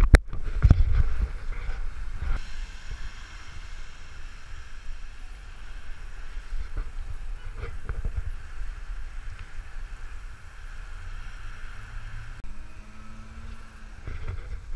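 Wind rumbling on a GoPro camera while riding a fixed-gear bicycle along a wet street, with a hiss of tyres and traffic behind it. A sharp knock comes right at the start, and a brief low hum near the end.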